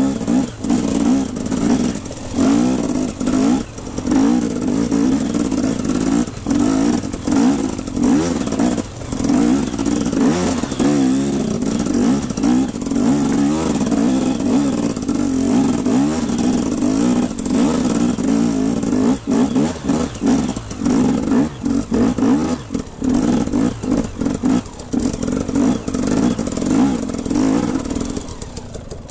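KTM EXC 250 two-stroke enduro engine revving under load up a rocky climb, its pitch rising and falling with the throttle, with the bike clattering over loose stones. Near the end the engine cuts out: it stalls.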